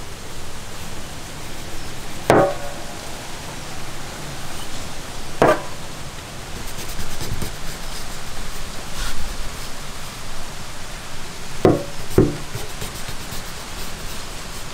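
Knife blade striking a metal tray as it cuts through a large catfish: four sharp clinks, the first with a brief ring, the last two close together, over a steady hiss.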